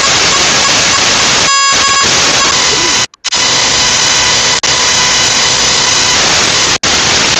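Loud burst of harsh static hiss from a video-call audio glitch, with faint steady whistling tones inside it, cutting out to silence briefly about three seconds in and twice more near the end.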